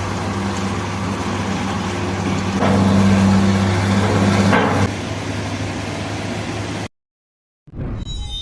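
Heavy construction machine's diesel engine running with a steady low drone, pushed harder for about two seconds in the middle before easing back. The sound cuts off abruptly near the end.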